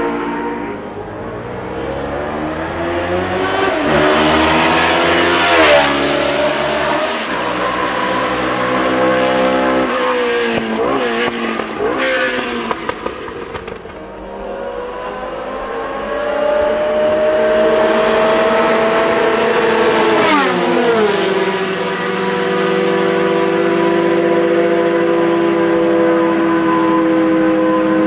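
Historic Formula One racing engines, the Ford Cosworth DFV 3.0 L V8 among them, at high revs. A car's note climbs as it approaches and drops sharply as it passes about six seconds in, then rises and falls in steps through gear changes. A second pass-by comes about twenty seconds in, followed by another car holding a steady high note.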